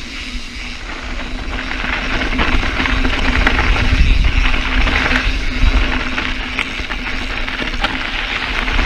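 Mountain bike riding fast over dirt and loose gravel: tyres crunching and hissing on the trail, wind rumbling on the microphone, and faint clicks and rattles from the bike. It gets louder about two seconds in, as the trail turns to loose rock.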